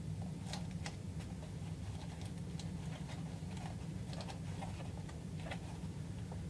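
Faint, scattered taps and rustles of hands pressing and handling a cardboard template with packing tape on it, over a steady low hum.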